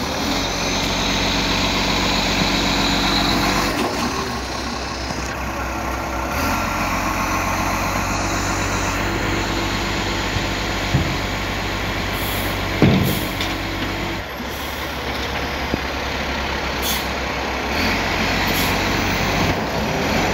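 A 2010 Iveco ACCO side-loader garbage truck's diesel engine runs steadily, its note stepping up and down as the MacDonald Johnston automated arm lifts and empties wheelie bins and sets them back. A heavy thump comes about 13 seconds in, and there are a few short hisses of air near the end.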